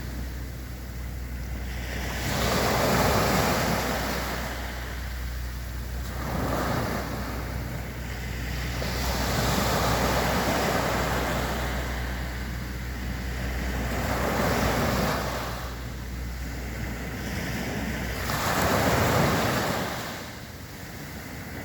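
Sea waves breaking and washing up on a sandy beach, each surge of surf swelling and fading about every three to four seconds. A steady low hum runs underneath and drops away near the end.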